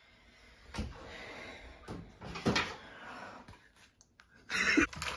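Kitchen cupboard being opened and a plastic colander pulled out, with a few sharp knocks and clatter of kitchenware. A short, louder vocal sound comes near the end.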